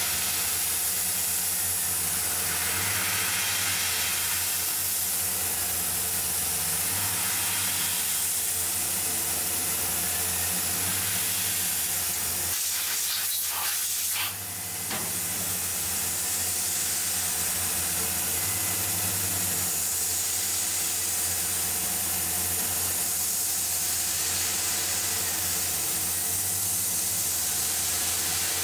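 Tormach CNC mill's end mill cutting aluminium under spray coolant: a steady hiss of coolant spray over the spindle's steady hum, dipping briefly about halfway through. The tabbed part is holding solid, with no chatter.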